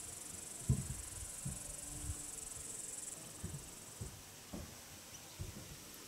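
High, steady insect trill from a grasshopper-like insect in the meadow grass, fading out about three to four seconds in. A short low buzz sounds about two seconds in, typical of a bee flying past the hives. Several soft low thumps come through, the loudest about a second in.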